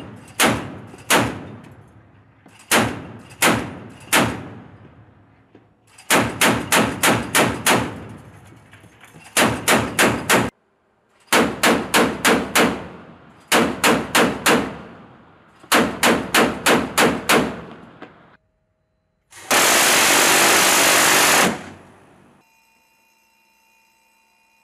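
Mk 38 25 mm naval chain gun firing in short bursts of three to seven rounds, about three shots a second, each shot sharp with a ringing tail. Near the end, a Phalanx close-in weapon system's Gatling gun fires one unbroken burst of about two seconds.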